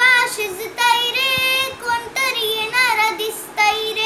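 A young girl singing solo without accompaniment, her voice gliding between notes and holding long ones with vibrato.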